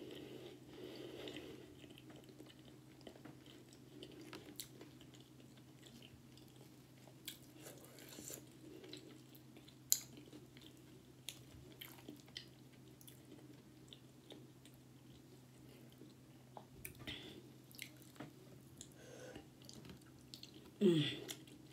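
Close-up mouth sounds of a person eating homemade tortilla-crust pizza: chewing, biting and small wet clicks and crackles, with one sharper click about halfway through. A steady low hum runs underneath, and there is a brief voiced sound near the end.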